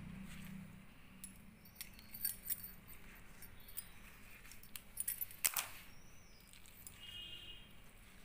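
Faint handling sounds as wet, steamed pumpkin leaves are peeled back by hand in a stainless-steel colander: soft rustling with scattered small clicks and clinks of fingers and bangles against the steel, one louder click about five and a half seconds in.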